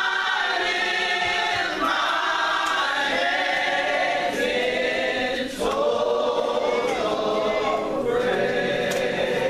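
Gospel vocal group singing together in harmony, in long held phrases.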